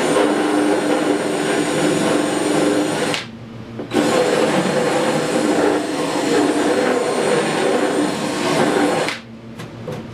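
Cordless drill running under load as it cuts into a plastic ATV fender, in two long runs with a short pause about three seconds in. It stops a second before the end, leaving a few light clicks.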